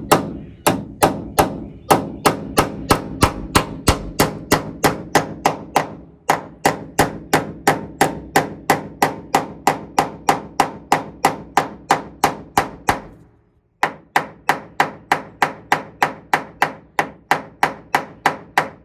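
Ball-peen hammer tapping rapidly and evenly on the metal header strip of a Ford Model A windshield frame, about three blows a second, each with a short metallic ring. The blows stop for about half a second about two-thirds of the way through, then carry on.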